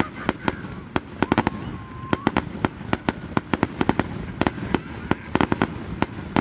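Aerial fireworks going off: a fast, irregular series of sharp crackling pops, many of them coming in quick clusters.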